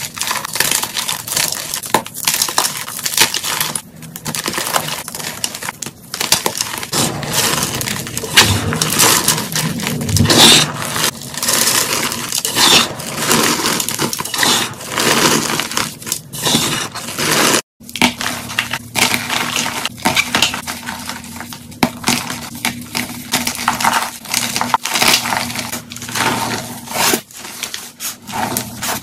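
Hands crushing and crumbling dyed chalk blocks into powder: a dense, continuous run of crunches and crackles, cutting out briefly about 18 seconds in.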